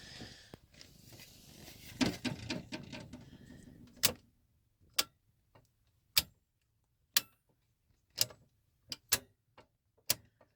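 Rustling handling noise, then a run of sharp clicks about once a second: circuit breakers being snapped off and back on, checked and reset because the RV water heater gives no ignition sound.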